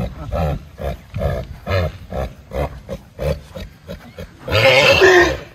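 Two horses meeting nose to nose: short low grunting nickers, about two a second, then a loud squeal about four and a half seconds in.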